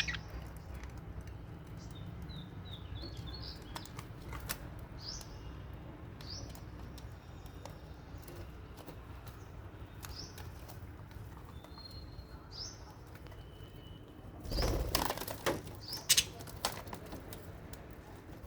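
Lovebirds and budgerigars giving scattered short, high chirps, with a burst of wing flapping about three-quarters of the way through and a few sharp taps just after it.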